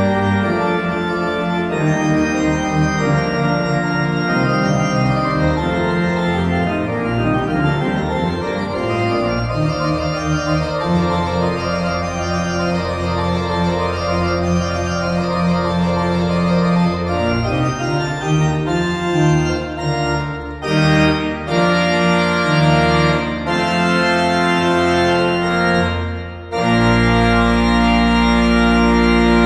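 J.W. Walker & Sons pipe organ playing full sustained chords over a moving pedal bass line. Past the middle the chords turn short and detached, then a full chord with deep pedal bass sets in and is held near the end.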